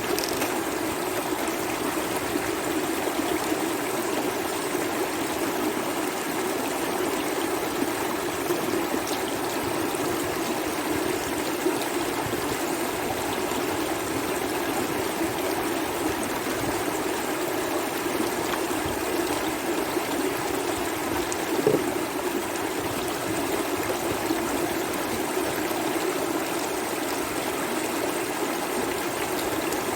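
Swollen river in flood rushing steadily, with one brief knock about two-thirds of the way through.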